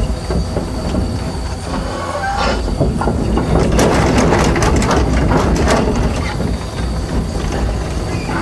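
Komatsu Avance-series hydraulic excavator's diesel engine running steadily while its steel crawler tracks clank and squeak as the machine travels, the clanking busiest in the middle. A thin steady high whine runs over it.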